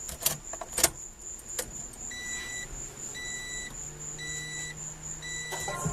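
A few sharp clicks and key rattles, then a car's warning chime beeping steadily about once a second.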